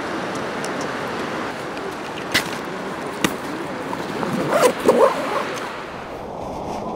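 Camera gear being handled on wet asphalt: a sharp click about two seconds in, another a second later, and a louder burst of knocking and rustling around five seconds in, over a steady rushing noise.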